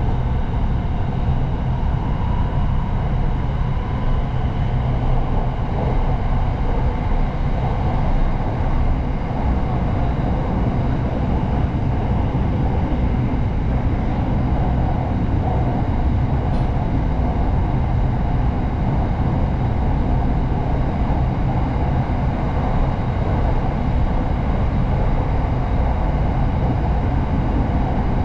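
Steady rumble of an SRT Red Line electric commuter train running along the track, heard from inside the carriage, with a faint steady whine above the rumble.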